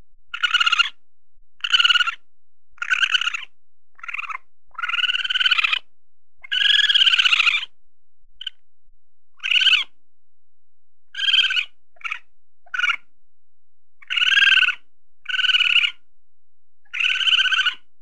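Raccoon chittering: a string of separate, evenly pitched calls, roughly one every second, each lasting half a second to a second or so, with a few very short chirps among them.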